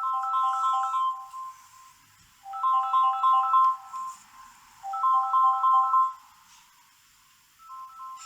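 Samsung Galaxy A20 smartphone ringing with an incoming-call ringtone: a short melodic phrase of quick, bright notes, repeated about every two and a half seconds with brief pauses between.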